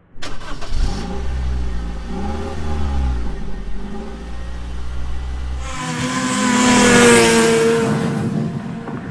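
A motor vehicle's engine running. The sound swells louder, peaking about seven seconds in, then fades, as a vehicle passing close by would.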